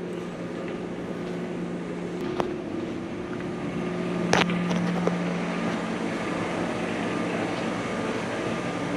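Steady low machinery hum with a held droning tone, growing a little louder about four seconds in. A sharp knock sounds about two and a half seconds in and a louder one just after four seconds.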